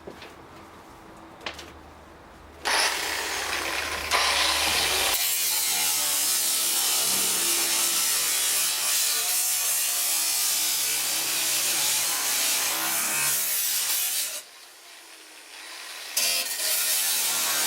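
A power tool cutting or grinding with a loud, even, hissing noise, in one long run and then again after a short pause near the end.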